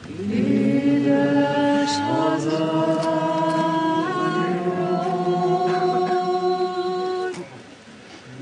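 A woman singing slow, long-held notes with no accompaniment, her pitch stepping up from note to note. She breaks off for a breath about a second before the end.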